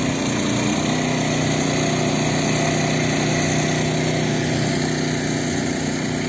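Small engine running steadily at constant speed, driving the pump that feeds the fire hose from the fire-fighting pickup's water tank.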